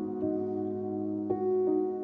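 Soft, slow keyboard music: held chords whose notes change about once a second.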